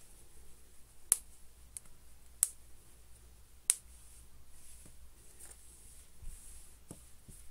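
Handling of a plush fleece dog outfit: faint rustling of the fabric with a few sharp clicks. The three loudest clicks come evenly, about a second and a quarter apart, in the first half.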